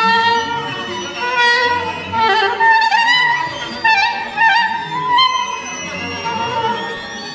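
Soprano saxophone playing a solo melody of held and bending notes over a string orchestra accompaniment.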